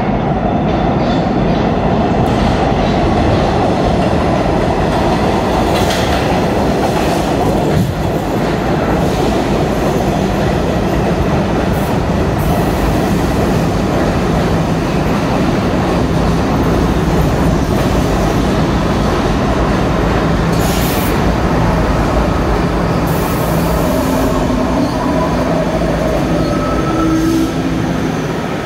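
NYC Subway R68/R68A train pulling into an underground station: a steady loud rumble of wheels on the rails with some clickety-clack, and short high screeches of wheels or brakes several times as it slows.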